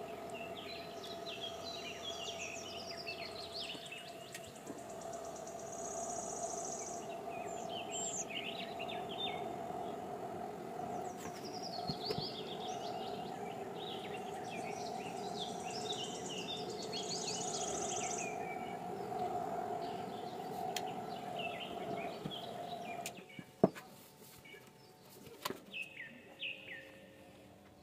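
Birds chirping repeatedly over a steady hum. About 23 seconds in the hum stops and a sharp knock follows, then a few lighter knocks near the end.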